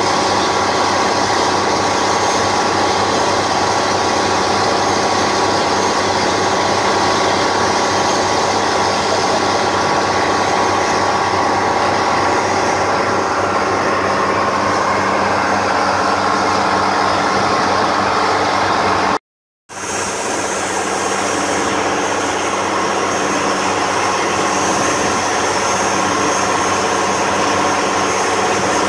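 Long-tail boat's engine running steadily at cruising speed, mixed with the rush of water from the wake. The sound cuts out completely for about half a second roughly two-thirds of the way through, then carries on as before.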